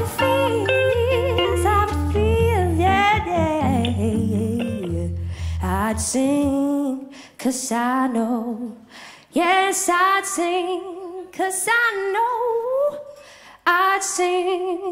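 Live band with a female lead vocalist singing ad-lib runs. About six and a half seconds in, the band drops out and she carries on alone, unaccompanied, in short phrases.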